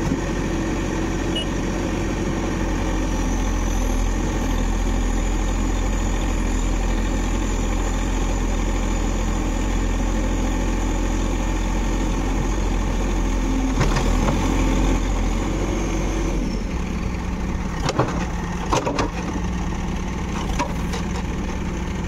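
Backhoe loader's diesel engine running at steady revs under load, then dropping back about three-quarters of the way through. A few sharp knocks follow near the end.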